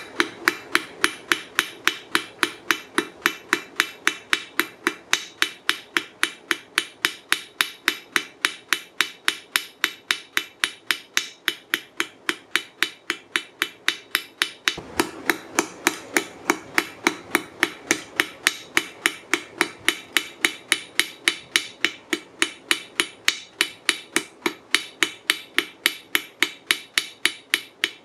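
Hand hammer striking hot rail-spike steel on an anvil in a steady rhythm of about three blows a second, each blow ringing briefly, with a momentary break about halfway through.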